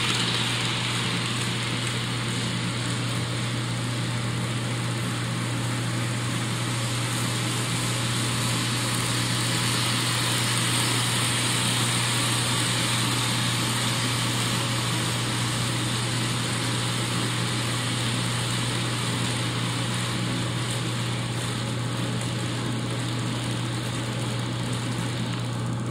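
HO scale model double-stack train's well cars rolling steadily past on the track, a continuous rolling noise of small wheels on rail over a steady low hum.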